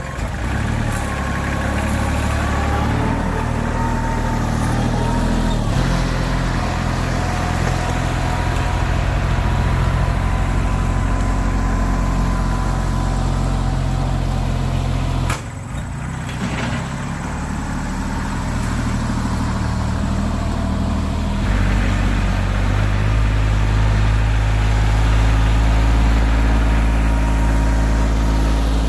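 Kubota compact tractor's diesel engine running steadily while working a box blade. There is a brief break about halfway through, and the engine note turns louder and deeper for the last third.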